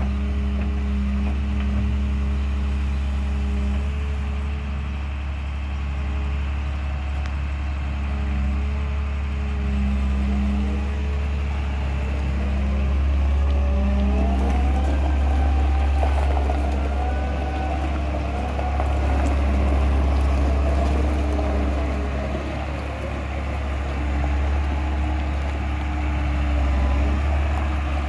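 CAT M318C wheeled excavator's diesel engine running steadily, with a whine that glides up and down in pitch around the middle as the hydraulics work the boom.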